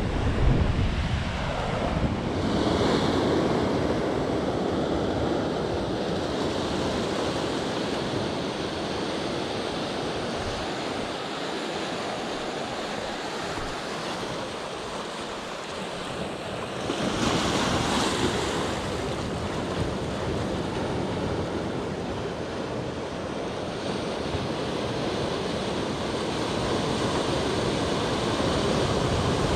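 Sea surf washing in steadily, with two louder waves breaking about three seconds in and again about eighteen seconds in; wind buffets the microphone throughout.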